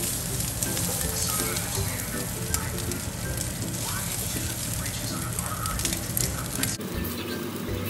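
Beef pieces sizzling in a nonstick frying pan, with light clicks of metal tongs, under background music with a stepping melody. The sizzle cuts off abruptly near the end.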